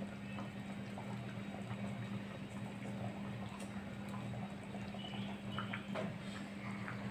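Fish curry with coconut milk bubbling at a light boil in a pot on a gas stove, the last simmer before it is taken off the heat. A steady low hum lies underneath, with a few faint clicks.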